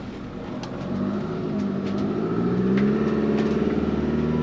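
Motorhome engine accelerating on the road, getting louder and rising slightly in pitch from about a second in, then holding steady.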